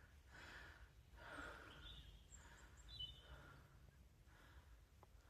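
Quiet outdoor ambience with faint, even breathing, about one breath a second, and a few faint bird chirps about two and three seconds in.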